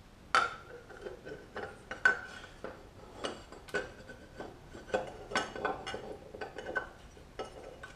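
Steel parts of a Ford C4 automatic transmission clinking and clicking as the sprag (one-way roller clutch) and its bushing are worked into the case and turned to line up. It is an irregular string of sharp metal clicks, some ringing briefly.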